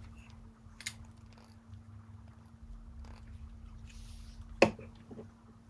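Hands handling a glue stick and paper craft pieces on a table: a few faint clicks and one sharp click about four and a half seconds in, over a steady low hum.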